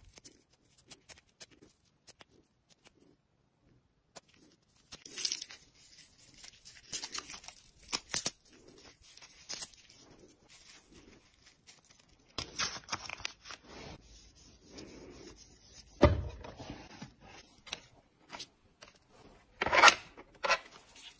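Cling film and cloth tape around a lipstick bullet being cut and peeled off, heard as rustling, tearing and small clicks in scattered bursts. A short thump about three-quarters of the way through and a loud rustle near the end.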